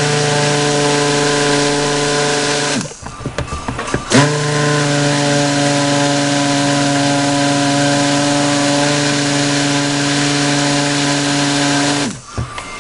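A 200-watt stick blender running in a bowl of raw soap batter, a steady motor whine that stops briefly about three seconds in, then runs again until just before the end. The batter is being blended thicker so the mint flakes stay suspended.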